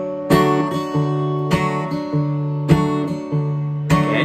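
Acoustic guitar with a capo, strumming chords in a steady rhythm: a strong strum about every second and a bit, with lighter strokes between, the chords ringing on.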